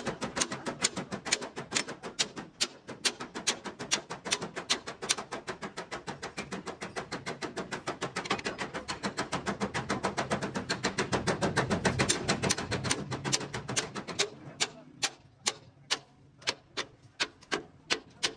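Rapid, even tapping strikes, about four to five a second, that become sparser and irregular near the end.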